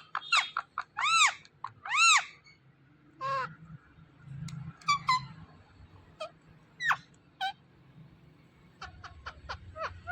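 Ringneck parrot calling: a few loud squawks that rise and fall in pitch in the first two seconds, then scattered short, sharp chirps.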